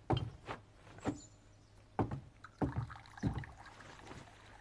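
Footsteps and dull knocks on a wooden floor as a man crosses a room and sits down at a table: about six soft thuds at uneven spacing over the first three and a half seconds.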